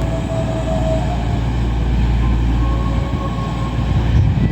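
East Midlands Railway Class 222 Meridian diesel multiple unit running slowly into the platform, its engines giving a steady low rumble. Faint thin squealing tones come and go over it.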